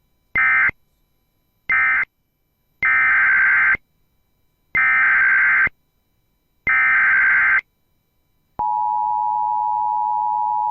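Emergency Alert System data bursts: three short end-of-message bursts, then three longer SAME header bursts of data tones. Near the end the steady EAS attention tone begins and holds, signalling the start of a new alert.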